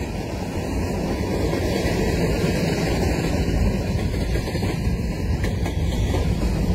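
CSX freight train's covered hopper cars rolling past, a steady rumble of steel wheels on the rails that grows slowly louder.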